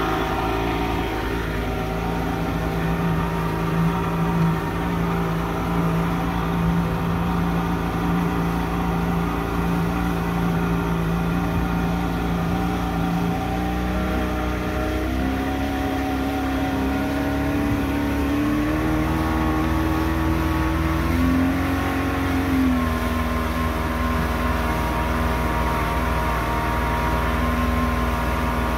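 Mercury outboard motor running steadily at low speed as the boat gets underway. About halfway through it is throttled up in a few steps, then eased back slightly and held at a steady cruising speed.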